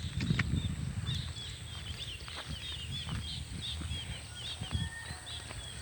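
Small birds chirping in rapid, repeated short calls, with a faint steady high whine and an uneven low rumble underneath.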